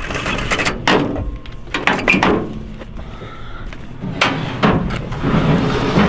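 A series of irregular sharp knocks and bangs, some close together in the first two and a half seconds and a few more from about four seconds in.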